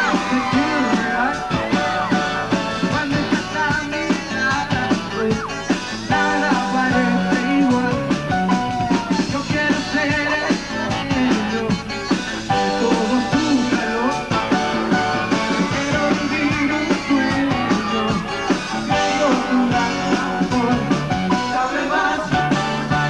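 Live pop-rock band music with a male lead singer, over a steady beat and bass.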